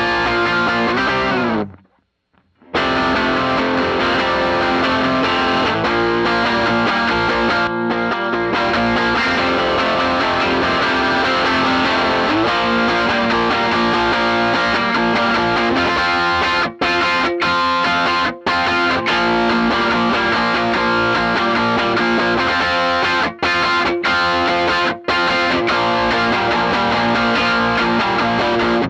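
Electric guitar played with overdrive through a Donner drive pedal into a cranked Bassman tube amp. A note slides down and the playing stops dead about two seconds in, then carries on with a few short staccato stops in the second half.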